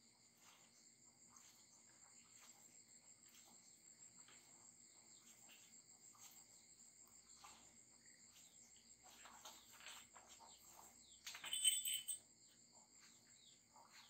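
Faint, steady chirring of crickets, with a short, louder chirping call near the end.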